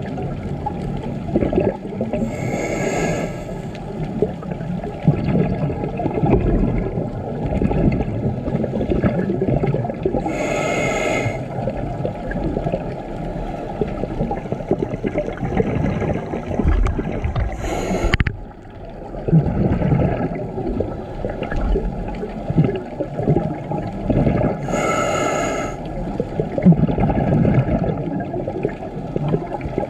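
Scuba diver breathing through a regulator underwater: a hissing inhale about every seven or eight seconds, with the bubbling of exhaled air in between.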